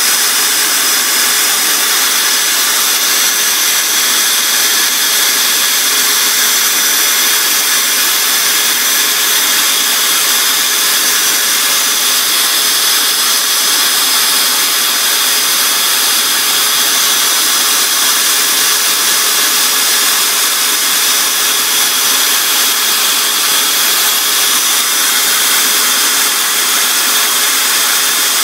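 Small power-tool motor running steadily at constant speed, turning a cork float body on a rod while a strip of sandpaper is held against it, with an even hiss under the motor's whine.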